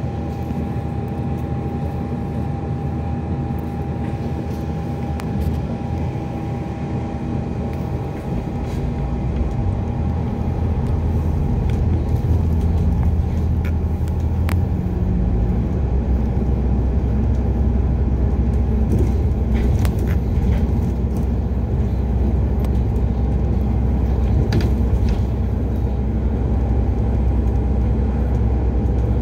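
Inside an Alexander Dennis Enviro400 Hybrid double-decker bus on the move: steady drivetrain running with a low rumble and a faint whine, and the rumble grows louder about ten seconds in.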